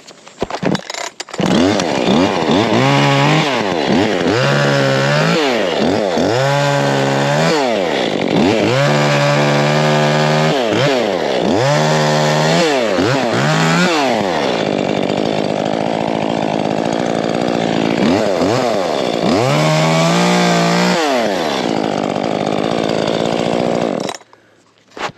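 Chainsaw cutting branches off a tree, revving up and dropping back about half a dozen times, then running steadily, with one more rev before it cuts off shortly before the end.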